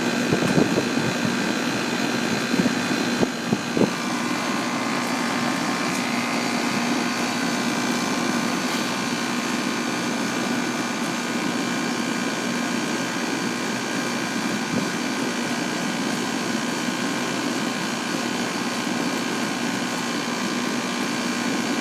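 Outdoor condenser unit of a 2001 York central air conditioner running steadily: a constant whirring from the fan over a steady hum, with a couple of light knocks a little past three seconds in.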